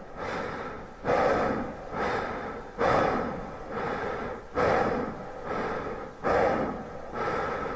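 A person breathing hard and fast close to the microphone, about one breath a second, each a short rush of air that starts sharply and fades.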